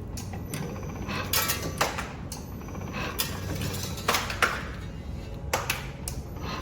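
Semi-automatic zipper slider assembly machine punching auto-lock sliders, a stroke for each press of the foot switch: a series of sharp, irregularly spaced mechanical clacks over a steady low hum.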